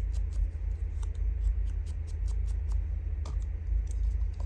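Small round ink blending tool dabbed quickly against the edge of a paper strip, a run of light taps about four to five a second that thins out near the end. A steady low hum runs underneath.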